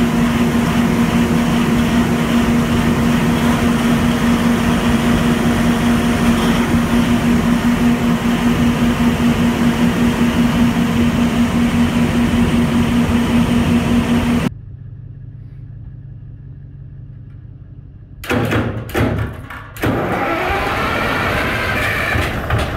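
Large diesel generator running steadily with a strong even hum, just after a cold start. About two-thirds of the way through it cuts off; after a short quieter stretch, a second diesel generator engine cranks in uneven bursts, catches, and runs up in speed.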